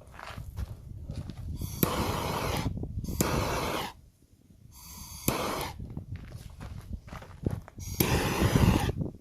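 A torch lighter clicked on four times, each click followed by the hiss of its gas flame, the longest about two seconds, as it shrinks heat-shrink tubing over freshly soldered wire joints.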